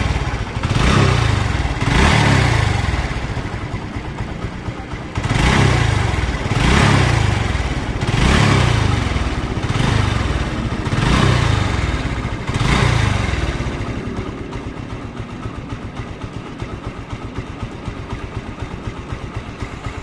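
TVS Victor's single-cylinder four-stroke engine, just fitted with a new timing chain tensioner, running while the throttle is blipped about eight times in quick succession, each rev rising and falling. For the last several seconds it settles to a steady idle.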